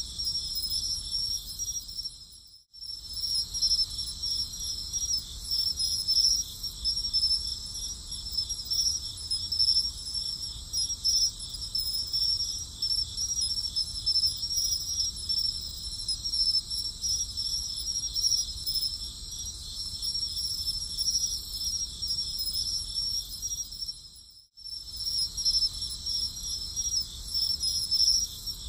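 A chorus of crickets: a steady, high-pitched chirring with a fast pulse. It fades out to a moment's silence and comes back twice, a few seconds in and again near the end.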